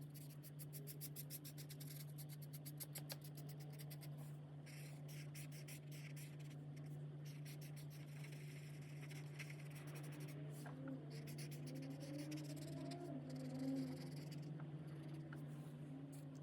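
Alcohol marker nib scratching across colouring-book paper in quick back-and-forth strokes, rapid and short for the first few seconds, then longer, slower strokes. A steady low hum runs underneath.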